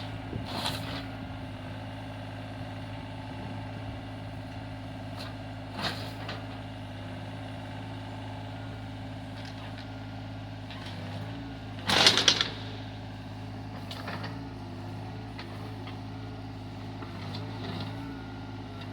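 Excavator engine running steadily, with a few short clanks and scrapes from the working machine; the loudest burst comes about two-thirds of the way through.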